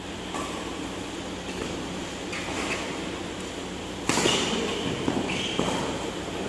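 Badminton rally: a sharp racket hit on the shuttlecock about four seconds in, ringing on in the large hall, over a steady hiss of room noise.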